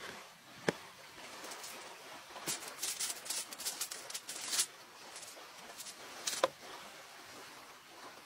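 A light tap, then aluminium foil crinkling and rustling for about two seconds as a hand handles it, then another single tap.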